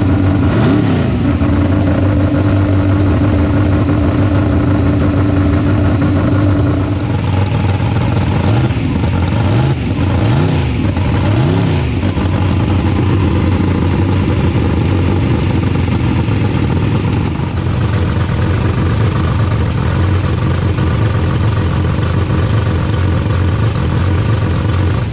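A 1963 Ford Falcon drag car's engine running, with several quick revs that rise and fall in pitch around the middle. The sound cuts off suddenly at the end.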